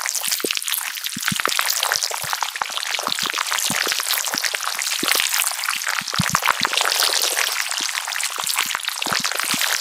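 Steady, dense crackling hiss made of many small ticks and pops, a sound effect that could be frying or rain.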